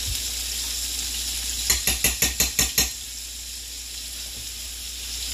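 Shrimp sizzling in hot oil in a nonstick frying pan, a steady hiss. About two seconds in comes a quick run of about seven sharp clicks.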